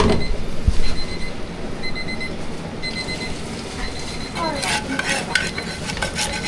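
An alarm clock beeping in short, high-pitched double beeps that stop about three seconds in, followed by a run of clattering knocks.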